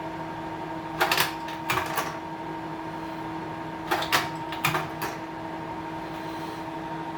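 Hanimex La Ronde 500S slide projector running with a steady motor and fan hum, its slide-change mechanism clacking in two quick clusters, about a second in and again about four seconds in, as it cycles to the next slide.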